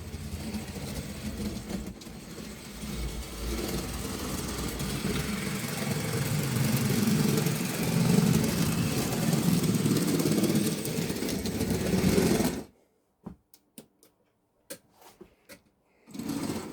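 Model railway locomotive motor running, with the train's wheels rolling over the track and points, getting louder as it comes nearer, then cutting off abruptly about three quarters of the way through, followed by a few light clicks.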